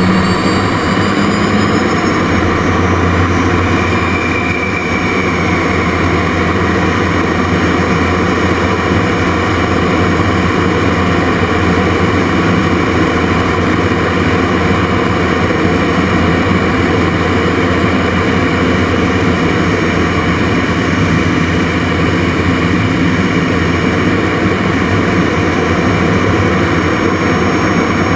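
Jet Provost Mk5's Viper turbojet and rushing airflow heard from inside the cockpit: a loud, steady roar with a low hum and a high whine that shifts in pitch during the first few seconds.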